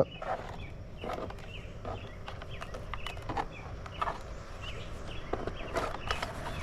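Scattered light clicks and knocks, irregular and a few per second, over a faint steady background.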